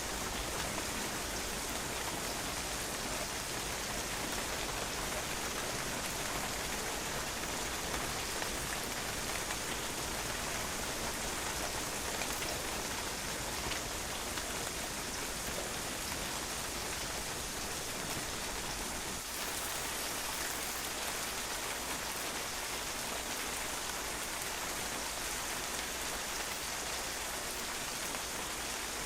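Steady rain, its drops pattering on a patio.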